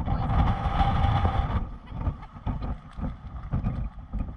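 Strong wind buffeting the microphone in uneven gusts, with a louder hissing rush that cuts off about a second and a half in.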